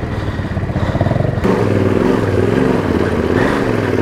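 Husqvarna 701's single-cylinder engine pulling under load up a steep dirt climb, the throttle opening and easing so its pitch wavers up and down. It gets suddenly louder about a second and a half in.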